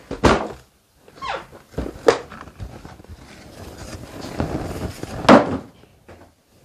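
Handling noise of a long hard-shell saber case and its cardboard shipping box: knocks and cardboard scraping as the box is lifted and moved, with the loudest knock about five seconds in.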